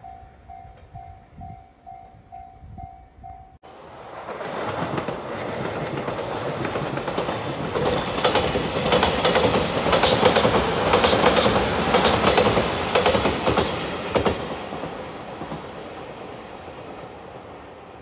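Level-crossing warning bell ringing in a steady pulse about twice a second, cut off sharply about three and a half seconds in. Then a JR Shikoku 8000 series electric limited express (Shiokaze) passes close by: the rumble builds, the wheels clack over the rail joints loudest in the middle, and it fades as the train runs away.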